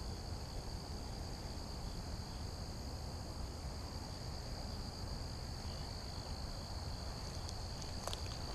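Steady high-pitched trill of insects, crickets in the grass, going on without a break over a low rumble, with a couple of faint clicks near the end.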